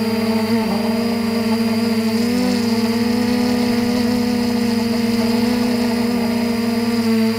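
Quadcopter's electric motors and propellers whining steadily in flight, heard from the drone's own camera, the pitch dipping and rising slightly a few times as the throttle changes.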